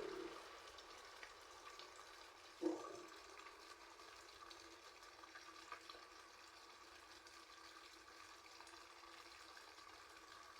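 Near silence: a faint steady hiss of room tone, broken once by a short sharp knock a little under three seconds in.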